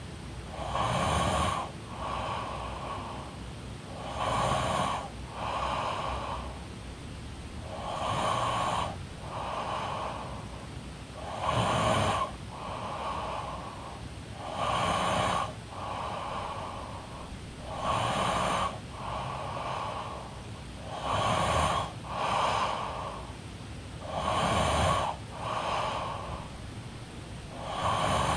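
A woman snoring in her sleep, with a regular breath about every three and a half seconds. Each breath is a louder snore followed straight after by a softer one.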